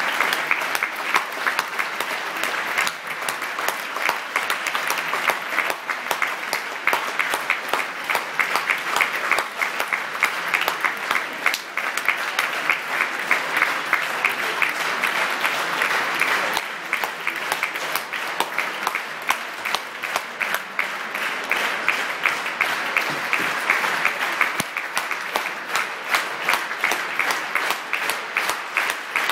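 Concert audience applauding: a dense, continuous patter of many hands clapping.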